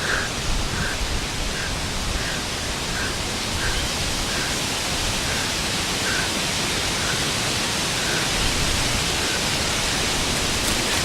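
Steady rushing noise across all pitches, with faint soft sounds repeating about every two-thirds of a second.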